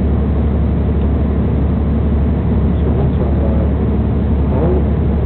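Steady low rumble of a diesel passenger train running at speed, heard from inside the carriage: wheels on the rails and running noise, with no breaks or distinct knocks.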